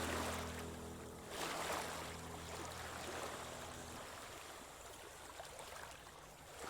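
Background music of sustained chords fades out about four seconds in, over an even rushing wash of water that swells and ebbs in slow surges like waves.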